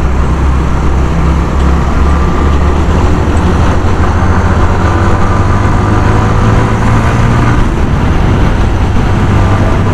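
Suzuki GS 150 SE's single-cylinder 150 cc four-stroke engine running under way, heard from the rider's seat with wind and road noise. Its pitch climbs slowly as the bike pulls, then drops back about eight seconds in.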